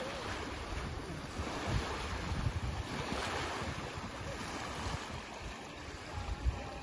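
Wind buffeting the microphone in uneven gusts over a steady wash of rippling lake water.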